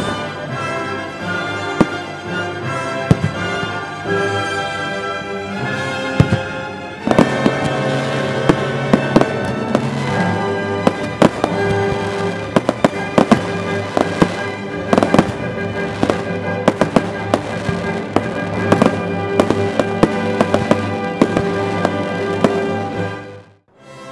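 Fireworks display: aerial shells bursting in many sharp bangs over music, the bangs growing much denser about seven seconds in. Sound and music drop out briefly near the end.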